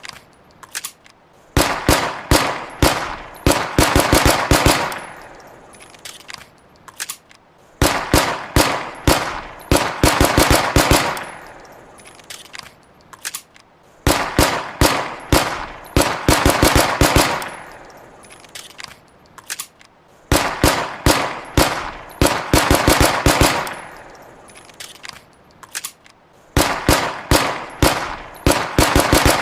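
Walther PPK pistol shots as a sound effect: strings of rapid shots lasting about three seconds, each string followed by an echoing tail that fades out, repeating about every six seconds.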